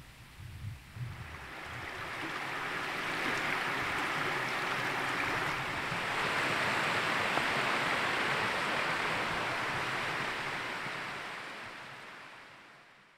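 Steady rushing of a flowing stream, fading in over the first few seconds and fading out near the end.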